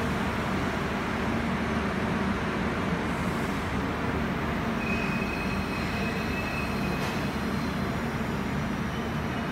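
Rajdhani Express passenger coaches rolling slowly along a station platform, with a steady rumble of wheels on the track. A thin, high squeal sounds for about two seconds near the middle.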